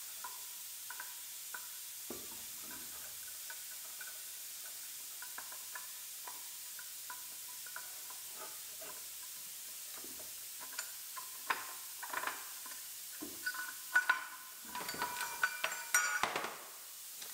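Scattered light clicks and rattles as a compact spare tire is lowered on its under-floor cable hoist and handled, with the hoist cable and its retainer rattling against the wheel. The clatter grows denser and louder in the last several seconds as the cable end is worked loose from the wheel centre.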